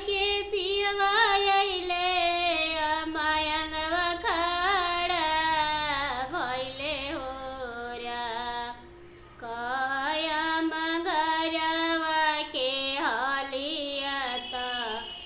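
A woman singing a Bhojpuri devotional bhajan to Shiva solo and unaccompanied, holding long drawn-out notes that bend in pitch. She pauses briefly about nine seconds in, then sings on.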